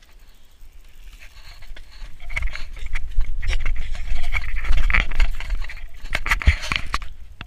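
Mountain bike coming down a rough dirt and rock trail toward the microphone, its tyres crunching and clattering over the ground. It gets louder from about two seconds in, with a low rumble of wind or handling on the microphone.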